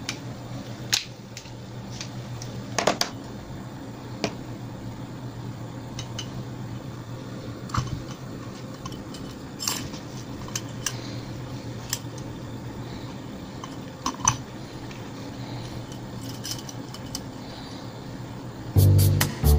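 Brass candle lantern being handled: scattered light metal clicks and clinks over a steady low hum. Music comes in near the end.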